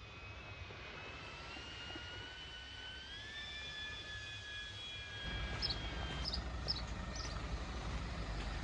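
Propeller whine of a camera drone: a pair of steady tones that dip and then rise as the motors change speed, stopping about six seconds in. A low rumble comes in about five seconds in, and a bird chirps four times near the end.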